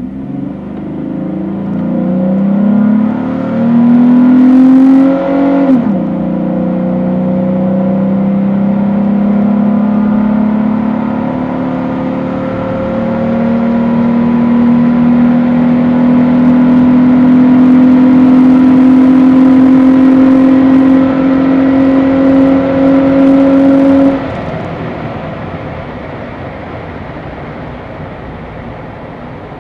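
2010 Jeep Wrangler JK's 3.8-litre V6, fitted with an MBRP exhaust and a cold air intake, heard inside the cabin with the windows up while accelerating. The engine note climbs for the first six seconds, drops suddenly as the automatic transmission upshifts, then drones steadily and rises slowly. About 24 seconds in the drone stops and the sound falls much quieter.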